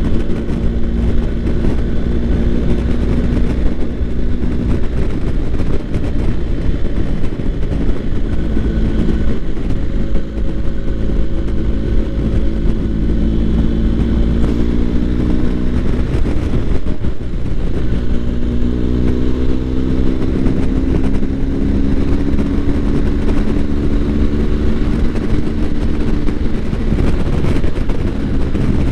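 BMW R1250 GS boxer-twin engine running at road speed, its note rising and falling with the throttle, over a steady rush of wind and tyre roar.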